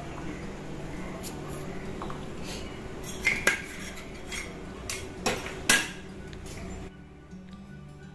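Metal kitchen utensils and pots clinking and knocking: a string of sharp clinks over a steady low hum. The clatter stops about seven seconds in.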